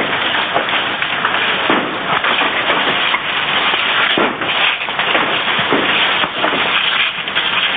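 A fire hose spraying water onto burning brush and debris: a steady, loud rushing hiss, with scattered cracks and snaps from the fire.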